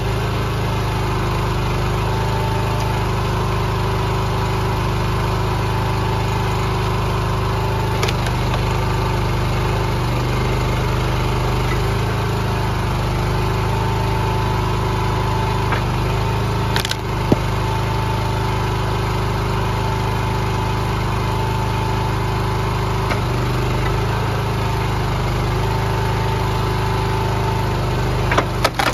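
Small petrol engine of a hydraulic log splitter running steadily at constant speed, with a single sharp knock about halfway through. Near the end, the first cracks come from the hemlock round as the splitter's wedge starts to bite into it.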